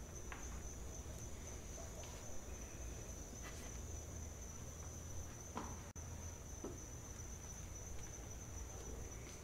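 Crickets chirping in a steady, unbroken high trill, with a few faint soft taps and rustles.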